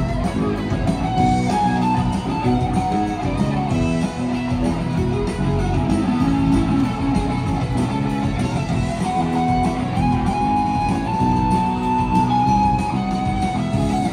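Rock band playing live in an arena: an electric guitar carries long held lead notes over bass and drums.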